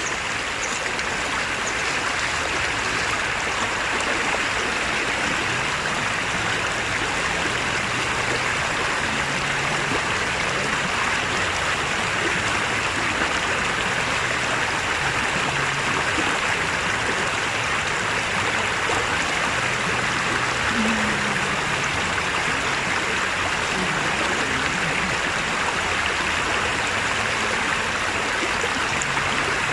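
Stream water rushing steadily over rocky rapids.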